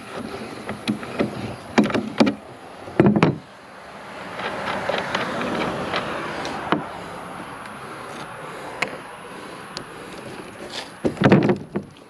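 Hand work on a wheelbarrow wheel's axle nut: clicks and clinks of an adjustable wrench on the nut, with a louder knock about three seconds in. Then a few seconds of scraping as the nut is spun off the axle by hand, and a loud clatter of knocks near the end.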